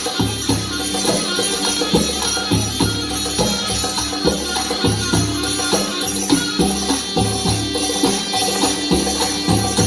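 Music with percussion keeping a steady beat under sustained instrumental tones.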